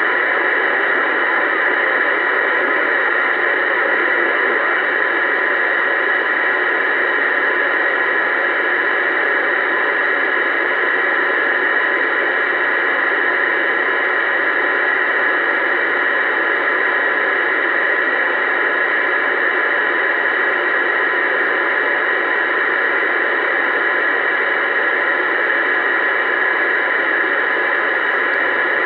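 Uniden Bearcat 980SSB CB radio on AM channel 28 hissing with steady, unbroken static through its speaker, the squelch open and no one transmitting.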